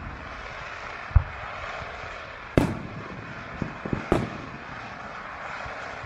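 Aerial firework shells bursting: a low thud about a second in, then two loud sharp bangs about two and a half and four seconds in, with a few smaller pops between them, over a steady background hiss.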